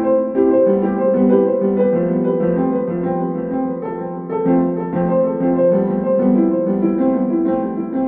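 Instrumental background music: a melody of held keyboard notes over sustained chords.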